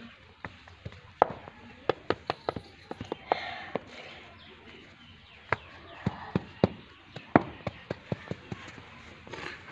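Scattered sharp clicks and taps, irregularly spaced, from a small plastic mould being handled and pressed into damp sand.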